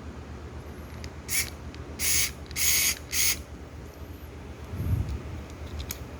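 A steady low engine rumble, with four short bursts of hiss one after another between about one and three seconds in, and a dull thump near the five-second mark.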